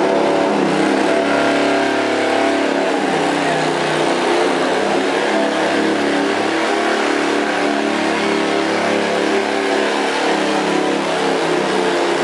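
Riding lawn mower engine running steadily under load as it pulls a weighted sled down the track.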